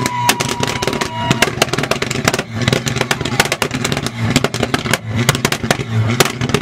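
Mk4 Volkswagen Golf held on a two-step launch limiter, its exhaust popping and crackling in rapid, irregular bursts over the engine's low note.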